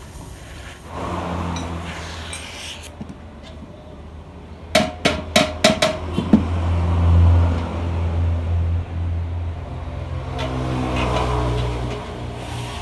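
Hammer striking metal: about six quick, ringing blows a little under five seconds in. Under them runs the steady low hum of an engine, swelling a few times.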